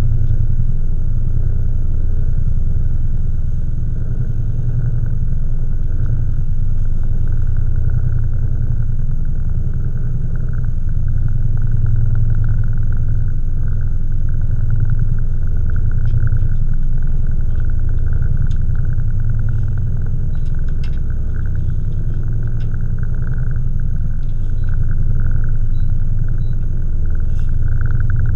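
Boat engine running steadily: a loud, even low rumble with a faint higher hum over it.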